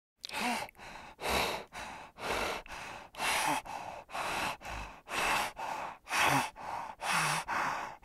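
An animal breathing heavily and rapidly in short, noisy puffs, a louder and a softer breath alternating about once a second.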